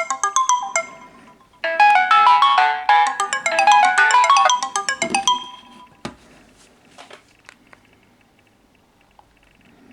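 Alarm melodies from two Samsung Galaxy phones, a Galaxy S I9003 and a Galaxy S2, playing at the same time as bright, overlapping chime-like notes. The notes thin out about a second in, start again, and stop about five seconds in, followed by a few sharp clicks.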